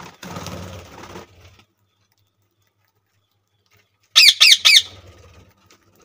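Budgerigars in an aviary: a short flurry of wing flaps as one bird takes off. About four seconds in comes a loud burst of four or five sharp, quick budgie squawks.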